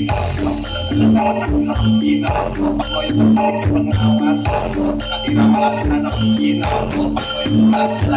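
Remixed dance music played loud through a large horeg sound system, with a repeating bass line and shaker-like percussion.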